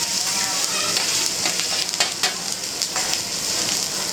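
Food sizzling on a hibachi griddle, a steady hiss with a few sharp clicks scattered through it.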